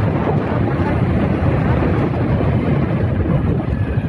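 Motorcycle riding at road speed: wind rushing steadily over the phone's microphone, with the bike's engine running underneath.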